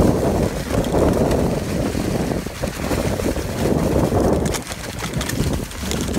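Wind rushing over the microphone of a mountain bike riding fast downhill, mixed with the tyres rolling over dry fallen leaves and the bike rattling. There are a few sharp clicks about four and a half seconds in.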